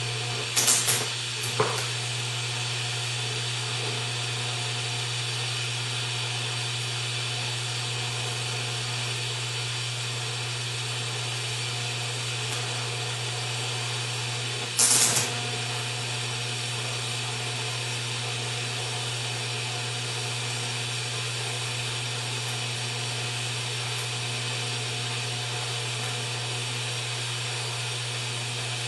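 A TIG welding arc hissing steadily over a low electrical hum as it fuses cast iron with a high-nickel filler rod. Brief loud bursts break in about a second in and again about halfway through.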